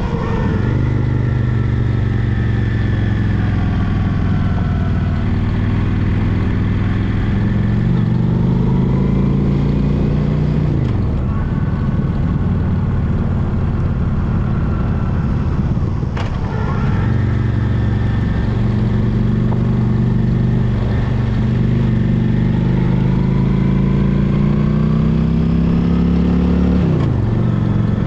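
Honda Shadow Spirit 750's V-twin engine running under way. The revs climb steadily and drop sharply at each gear change, about ten seconds in and again near the end.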